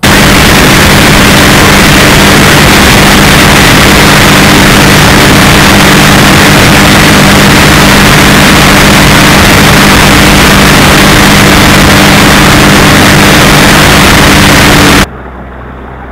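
Bass boat's outboard motor running at speed, its steady engine note buried under heavy wind noise on the microphone, very loud throughout. About a second before the end it cuts suddenly to a much quieter steady engine sound.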